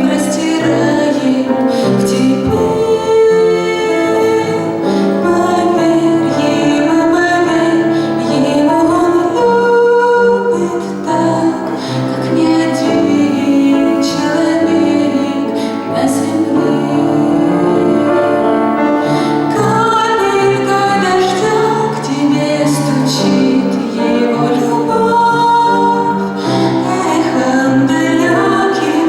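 A woman singing a Christian song with steady instrumental accompaniment.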